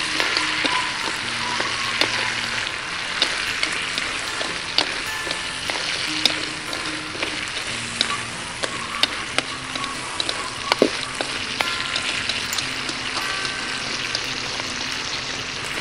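Field crabs sizzling in a metal wok as tamarind sauce is poured in and stirred with chopsticks, which click sharply against the pan now and then.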